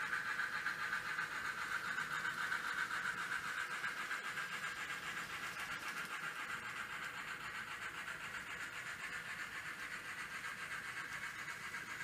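N scale model trains running on the layout's track: a steady whir of small motors and wheels on rails, slowly fading.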